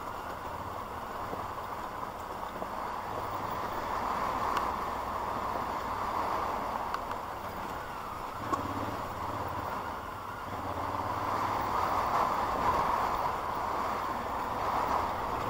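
Vehicle driving over a rough unpaved road: a steady low engine drone under continuous tyre and road noise, with a single sharper knock about eight and a half seconds in.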